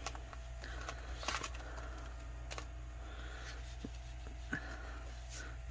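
A few faint, short handling clicks spaced a second or so apart over a steady low hum.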